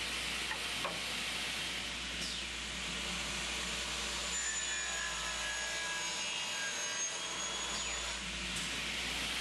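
Tekna TK133 automatic miter saw running, its blade cutting through solid copper bar over a steady hiss, with a high ringing whine from the cut from about four seconds in to near the end.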